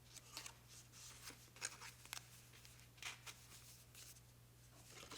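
Faint scattered rustles and light clicks of hands handling packaging and a cleaning cloth, over a low steady hum.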